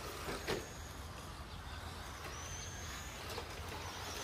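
Faint high whine of electric RC rally cars' motors as they run around a dirt track, rising briefly under throttle a couple of times over a low steady rumble. There is a short knock about half a second in.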